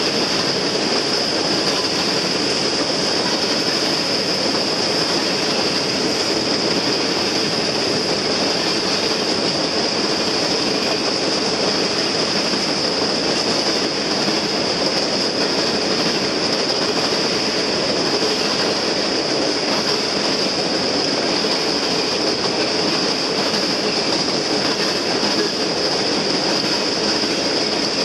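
Freight cars of a CSX train rolling steadily past: a continuous rumble of wheels on rail, with a steady high-pitched whine running over it.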